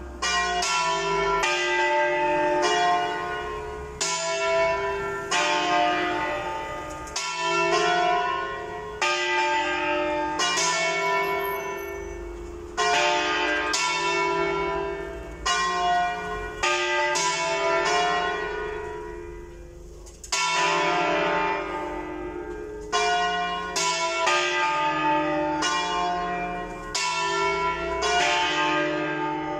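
Church bells ringing a distesa: three bells (the 2nd, 3rd and 4th) of a five-bell ring tuned in C, swung full circle so that their strokes fall irregularly and overlap in a continuous peal. The strokes thin out briefly about two-thirds of the way through, then pick up again.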